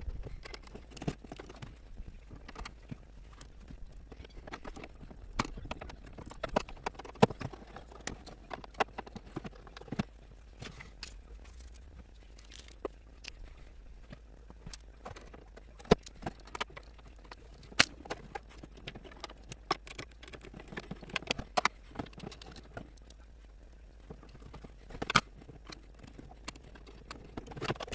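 Irregular small clicks, taps and knocks of hands fitting small plastic and metal parts onto an RC model boat, as its plastic running hardware goes back on the transom.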